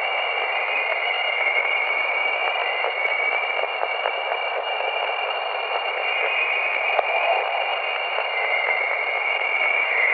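Jupiter's chorus: radio-frequency plasma waves in Jupiter's magnetosphere, recorded by Voyager and played back as sound. A steady radio-like hiss with a few held high tones and a higher band that slowly wavers up and down.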